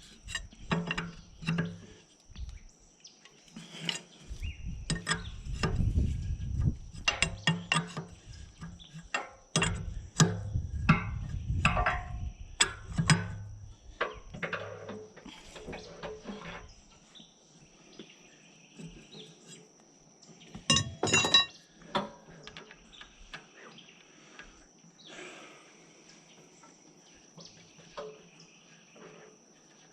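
Repeated metal clinks and knocks, like tools and parts being handled, loudest in the first half and again in a brief cluster around two-thirds of the way through. Two stretches of low rumble lie under the clinks, and a faint steady high-pitched tone sits beneath everything.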